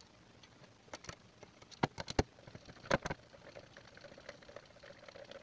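A few scattered, sharp metallic clicks and taps, irregular and bunched in the first half, from a socket extension and pan bolts knocking against a transmission oil pan as the pan bolts are started by hand.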